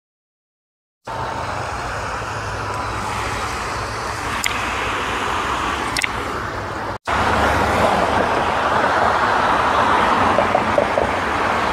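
Road traffic noise from cars and trucks on a multi-lane road, a steady rush with a low rumble underneath. It starts about a second in and breaks off for an instant about seven seconds in before carrying on.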